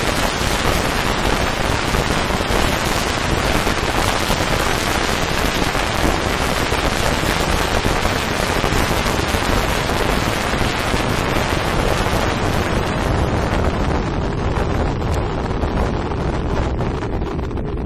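Wind noise buffeting the camera's microphone on a motorcycle at road speed, a loud steady rush that buries the engine. The hiss thins out over the last few seconds as the bike closes up on the riders ahead.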